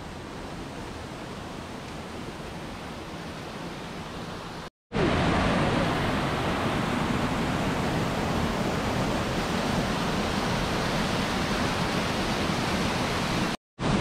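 A waterfall pouring into a rock pool makes a steady rush of water. The sound cuts out for a moment about five seconds in and again near the end. After the first break it is louder.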